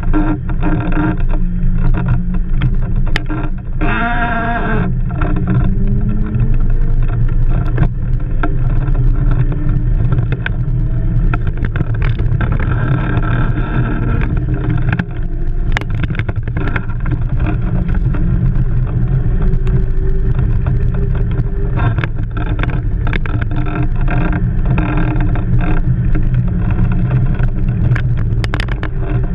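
Steady low rumble and rushing wind noise from a blokart rolling fast across the beach sand, picked up by a pole-mounted GoPro Hero3 in its housing. A brief wavering tone sounds about four seconds in.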